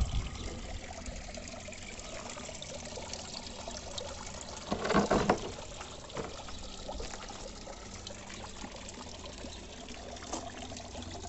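Water trickling and pouring steadily into a garden pond from the return of a running biological filter. A brief louder noise comes about five seconds in.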